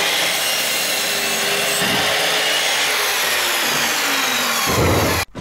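Electric sliding mitre saw running and cutting through a wooden plank: a steady motor whine under the rasp of the blade in the wood. It cuts off suddenly near the end.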